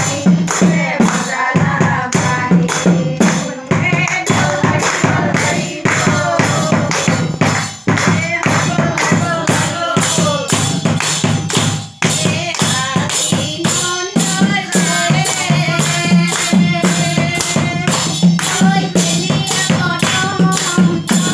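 A group of women singing an Assamese devotional naam together, their voices rising and falling in a melody. They keep a steady beat with hand-clapping and a cord-laced hand drum, a sharp percussive stroke a few times a second.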